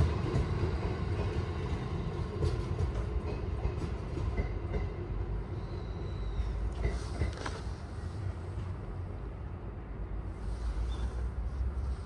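A JR Freight train hauled by an EH200 electric locomotive running past on the rails: a steady low rumble of wheels and wagons with scattered clicks, slowly fading.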